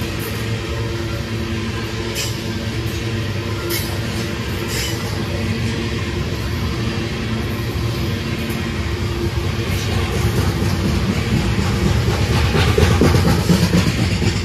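Diesel locomotives of a train running with a steady engine drone, with a few sharp clicks of wheels over rail joints early on. The sound grows louder from about ten seconds in and is loudest near the end.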